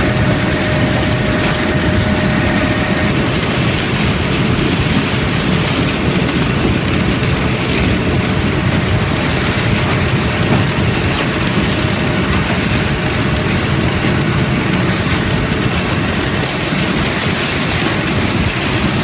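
Heavy harvest machinery running steadily, a loud, even engine-and-machine noise with no change in pace, from corn harvest equipment at work.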